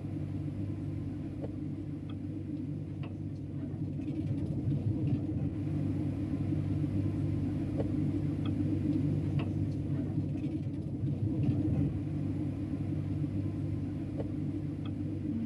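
Steady low machinery rumble and hum, with a few faint ticks scattered through it.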